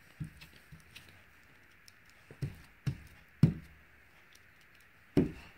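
Felt-covered stamper dabbed repeatedly onto the painting on a tabletop: a string of irregular dull taps, the loudest about three and a half seconds in and again near the end.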